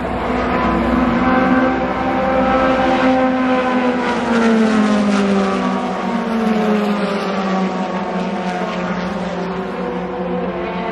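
Race car engine at high revs going past on the track, its note sliding down in pitch as the car passes, with another car's engine note coming up near the end.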